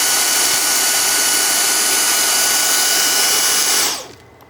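Dyson DC31 handheld vacuum cleaner running with a steady high-pitched whine, then cutting off near the end.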